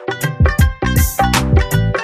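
Background music with a steady beat: a funky, reggae-like groove with drums and held instrument notes.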